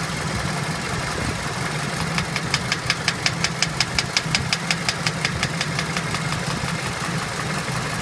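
Toyota 2AZ-FE 2.4-litre four-cylinder engine idling, with a sharp, even knock about five times a second that comes in about two seconds in and fades out a few seconds later.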